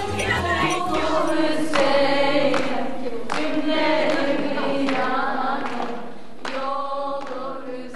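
A choir singing slow, long held notes. The low accompaniment underneath drops out about a second in, and the singing fades near the end.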